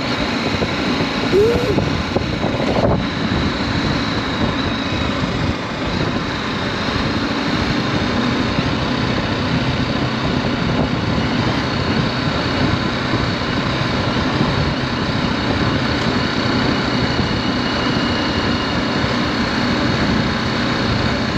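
BMW G310GS motorcycle being ridden: its single-cylinder engine running steadily under a dense rush of wind and road noise.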